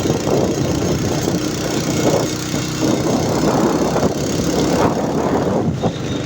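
Car engine running with steady road noise, heard from inside the cabin while driving.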